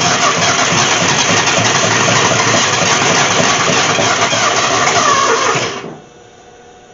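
Ford Falcon engine running briefly on starting fluid, then dying out suddenly about six seconds in.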